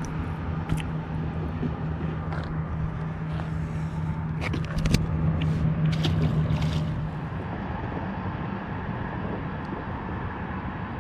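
Steady rumble of road traffic with a low hum that fades out about seven seconds in. A few sharp clicks and knocks fall on top of it, the loudest about five seconds in.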